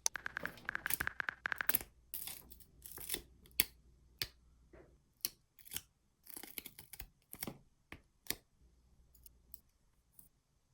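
Paper stickers being peeled from their backing and handled while decorating a diary. A quick run of crackling at the start, then separate short peeling rasps and light taps that thin out near the end.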